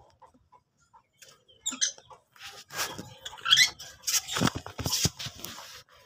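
Lutino peach-faced lovebirds giving short chirps with quick rising glides, over scratchy rustling and clicking in the nest shavings; the sounds come in a busy cluster through the middle.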